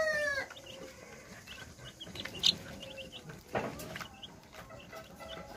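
A cage of young chicks peeping, many short high peeps scattered throughout. A drawn-out falling call fades out in the first half second, and there is a single knock about three and a half seconds in.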